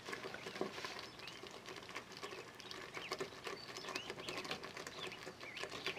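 Faint small clicks and scrapes of a ladle in a multicooker's jam-filled bowl, with many short, high squeaks.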